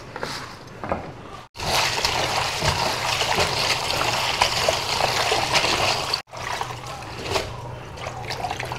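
Kitchen tap running into a plastic bowl of shredded cabbage while hands wash the leaves. The water starts abruptly about a second and a half in and cuts off suddenly about six seconds in, with quieter splashing of the leaves before and after.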